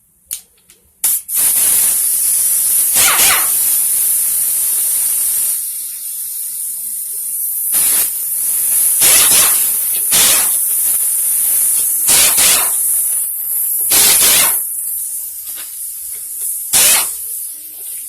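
Pressurised spray hissing, starting sharply about a second in and running on with louder spurts every couple of seconds, typical of spraying or blowing clean parts during an engine teardown.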